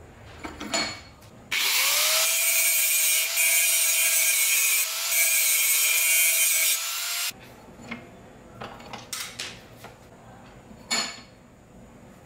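Angle grinder spinning up with a rising whine and grinding a small steel bolt clamped in a bench vise for about six seconds, then cutting off suddenly. A few light metal clicks follow as the part is handled in the vise.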